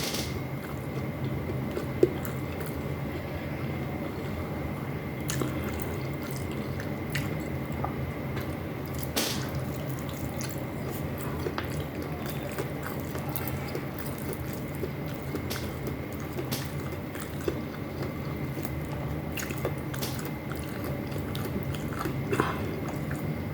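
Close-miked chewing and mouth sounds of someone eating rice and paksiw fish, with scattered small clicks, over a steady low hum and a faint high whine.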